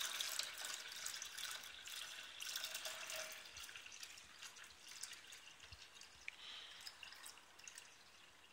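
Water pouring in a thin stream from a black pot into a plastic measuring jug, a steady splashing trickle that grows slowly quieter toward the end.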